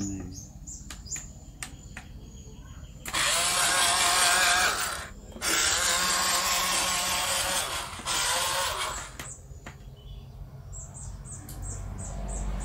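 Small electric motor in a Huina 1753 RC dump truck whining at a steady pitch in three runs, starting about three seconds in, with the middle run the longest.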